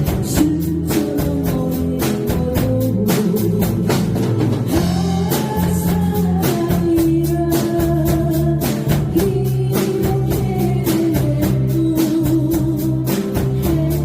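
A band playing a trot song: a drum kit keeping a steady beat with regular cymbal strokes, under bass, guitar and keyboard.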